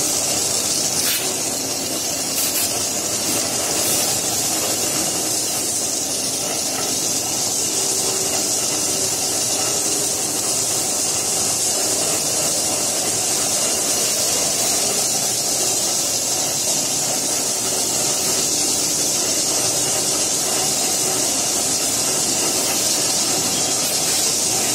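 Cleaning spray lance of a foam nebulizer jetting onto a stainless conveyor machine: a steady, unbroken hiss.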